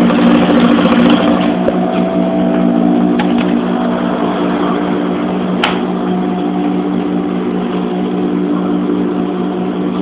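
Electric sewing machine running steadily, its motor humming as it stitches a pleat into the curtain fabric, with a single sharp click a little past the middle.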